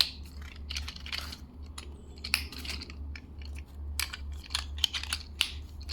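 Hard plastic parts of a Rusty Rivets Blaster Tank toy clicking and clattering as its tires are fitted and snapped on, in a string of irregular sharp clicks over a steady low hum.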